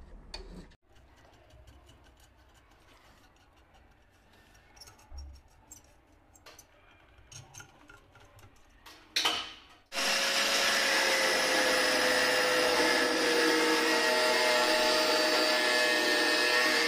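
Faint handling clicks and taps, a short loud burst just after nine seconds, then a power tool starts about ten seconds in and runs steadily with a whine that sags slightly, cutting into the PVC drain pipe to remove a broken P-trap.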